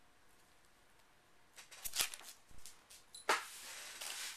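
Plastic comic-book sleeves crinkling and rustling as bagged comics are handled and swapped by hand. A few sharp clicks come about two seconds in, then a longer rustle starts with a snap about three seconds in.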